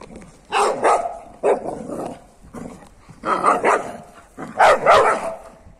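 Dog barking in four bursts of several loud barks each, with short pauses between.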